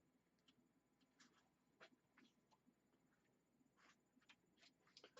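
Near silence with faint, scattered clicks and scratchy rustles: computer cables and parts being handled and pushed into place inside a PC case.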